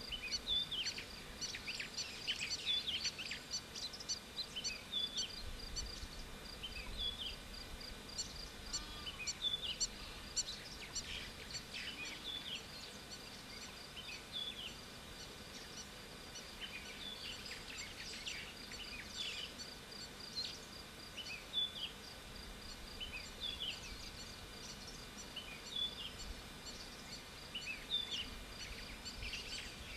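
A mix of birds chirping and calling, with many short, quick, mostly downward-sliding notes overlapping one another. Beneath them runs a steady, rapid, high-pitched ticking.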